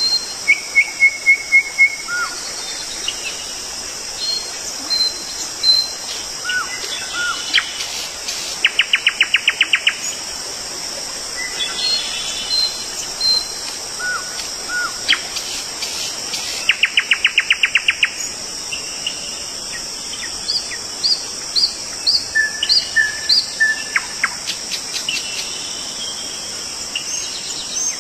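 Songbirds calling: runs of short, evenly repeated chirps and, twice, a fast rattling trill, over a steady high insect buzz.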